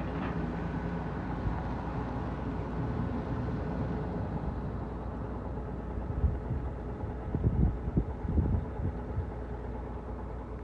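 Heavy diesel truck engine running steadily, with a few low thumps and rumbles about six to nine seconds in.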